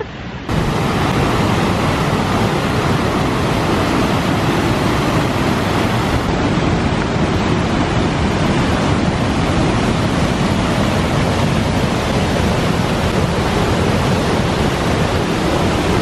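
Loud, steady rush of the High Force waterfall on the River Tees, heavy water plunging over rock into a gorge, starting suddenly about half a second in.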